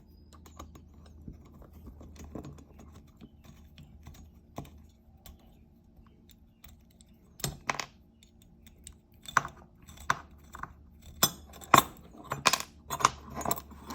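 Small metal parts clicking and clinking as a table arm is taken off and handled: ball chain and hardware knocking together in scattered sharp clicks, sparse at first and busier in the second half.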